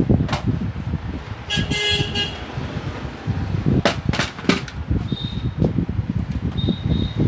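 Knocks and clicks of a dot matrix printer's plastic casing being moved and handled, over a steady low rumble. A short vehicle horn toot sounds about two seconds in.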